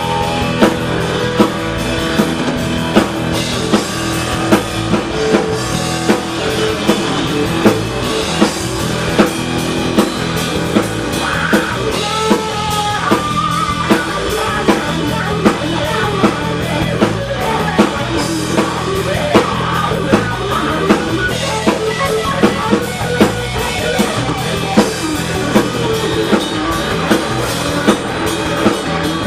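Live blues-rock band playing an instrumental stretch: electric guitar over a drum kit keeping a steady beat, with no singing.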